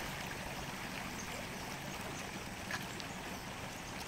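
Shallow river running over a gravel bed, a steady rushing of water, with a few faint ticks.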